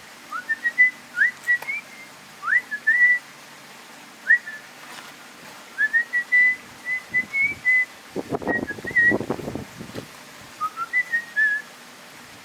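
A person whistling a tune: a string of short notes with quick upward slides and brief held pitches. About eight seconds in there is a short burst of low rustling noise.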